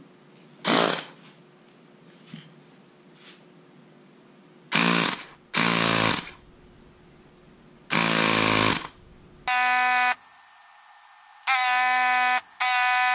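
Ryobi cordless inflator pumping air into a PVC air cannon's pressure chamber, run in six short bursts of about a second each, a buzzing mechanical drone that becomes a steadier pitched buzz in the last three. A short burst of hiss comes about a second in.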